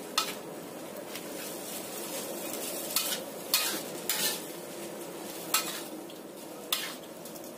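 Bean sprouts and glass noodles sizzling as they stir-fry in a pan over a raised flame, with a spatula knocking and scraping against the pan about six times.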